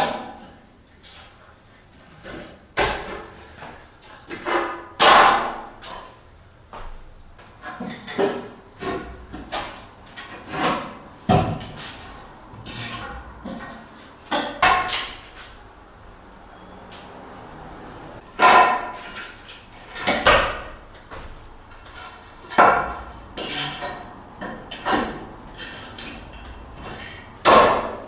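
Irregular knocks and clanks, about one every second or two, some ringing briefly: hammer blows and metal and wooden parts knocked together while fitting floor joists onto anchor studs.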